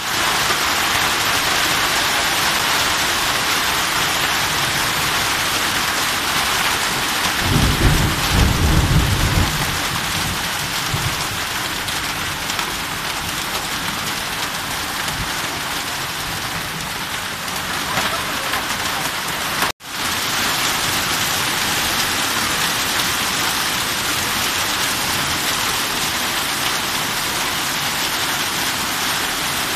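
Hail and heavy rain pelting down on the ground in a loud, steady, dense hiss. A low rumble swells about eight seconds in and lasts a few seconds, and the sound drops out for an instant about two-thirds of the way through.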